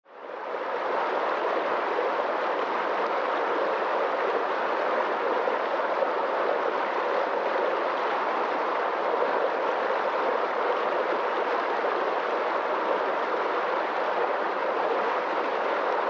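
Fast rocky stream rushing over stones in whitewater rapids, a steady rush that fades in over the first second.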